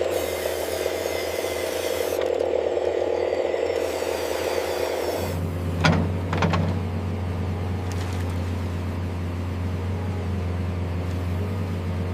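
Small electric motors and gearing of an RC construction machine whirring, settling about five seconds in into a steadier low hum, with two sharp clacks shortly after.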